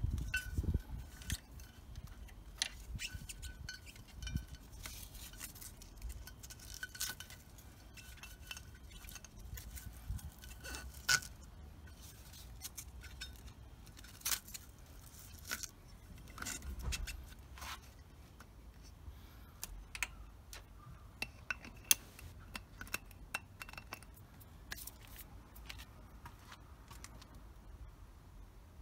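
Hands fastening straps and plastic buckles around a metal fuel bottle on a motorcycle frame: scattered clicks, scrapes and small clinks, with a few sharper snaps.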